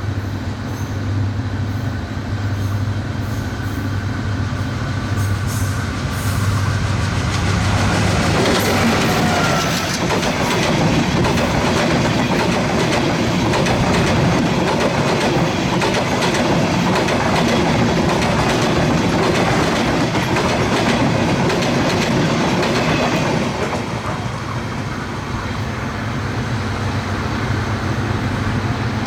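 A diesel locomotive's engine runs with a steady low hum. From about eight seconds in, an express train passes at speed with a dense rumble and rapid clickety-clack of wheels over rail joints, for about fifteen seconds. After it has passed, the steady engine hum is left.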